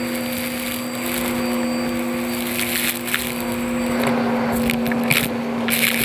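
Vacuum cleaner running with a steady motor hum as its floor head sucks up heavy carpet debris: grit, lint and small hard bits crackle and rattle up the wand in quick spurts, coming more often in the last two seconds.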